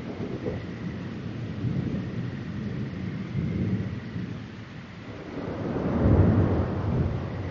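Thunder rumbling over steady rain. The rumble rolls unevenly, swells to its loudest about six seconds in, then starts to fade.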